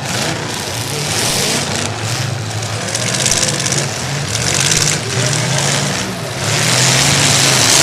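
Demolition derby cars' engines running and revving, their pitch rising and falling, with surges of loud noise over them.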